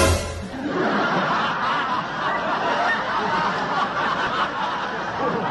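People laughing and snickering without a break. The sound starts abruptly with a short loud onset.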